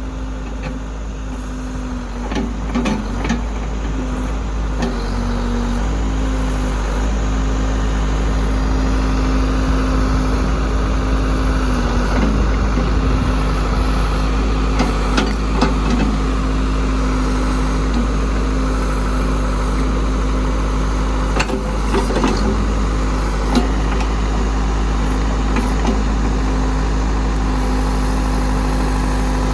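Backhoe engine running steadily under load, growing louder over the first several seconds, with scattered clanks and knocks as the machine digs out olive trees by the roots.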